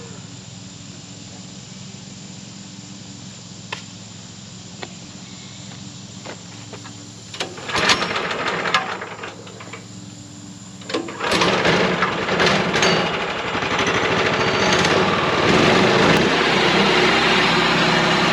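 A small gasoline engine is started. Two loud rough bursts come about halfway through, then it catches and runs steadily and loudly, over a steady low hum.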